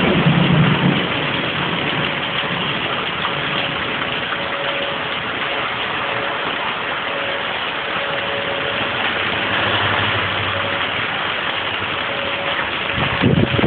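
Heavy rain, a steady hiss, with the faint steady tone of a distant tornado siren swelling and fading over it.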